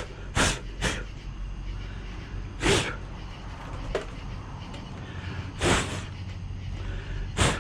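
A man blowing short, sharp puffs of breath to clear bugs off a monitor: three quick puffs at the start, then single puffs every two or three seconds, over a steady low background hum.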